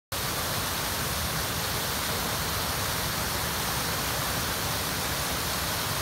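Waterfall: water pouring over a rock ledge in a steady, even rush.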